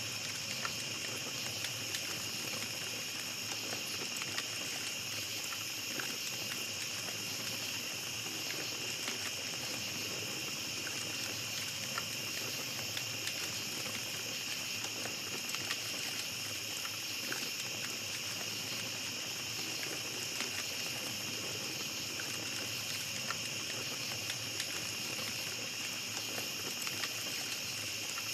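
Small campfire crackling with scattered small pops, over a steady, high chorus of night insects.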